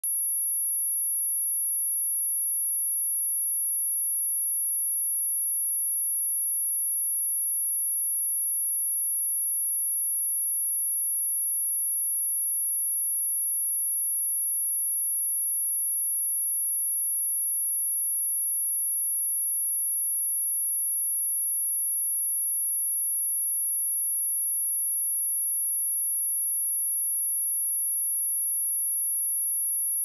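A pure sine-wave test tone at 10,516 Hz, a single high, thin pitch held steady at one level, used for testing speakers and shaking dust and water out of them.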